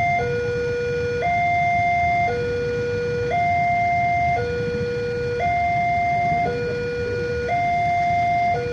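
Railway level-crossing warning alarm sounding a steady high-low two-tone pattern, each tone lasting about a second, the signal that a train is approaching and the crossing is closed.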